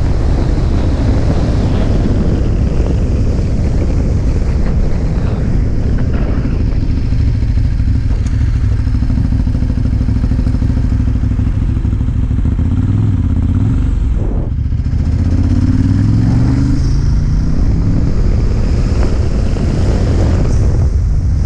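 Ducati motorcycle engine running on the move under heavy wind rumble on the microphone. About two-thirds of the way through it accelerates, its pitch rising, with a brief break in the middle of the climb.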